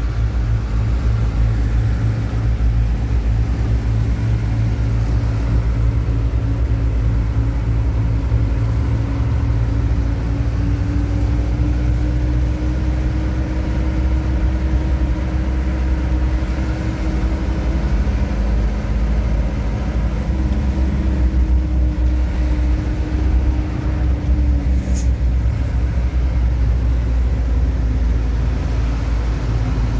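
Truck engine and road noise heard inside the cab while driving: a steady low drone. An engine note climbs slowly for most of the stretch, then fades away about four-fifths of the way through.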